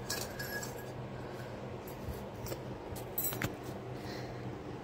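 A few faint, light clicks and taps of small terracotta clay pots being touched and set down, mostly in the second half, over a steady low room hum.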